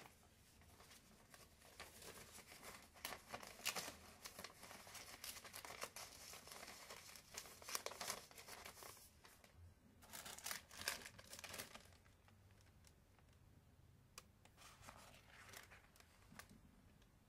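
Paper and cloth being handled, rustling and crinkling in irregular bursts: a long spell, a short gap, a second spell about ten seconds in, then only faint rustles.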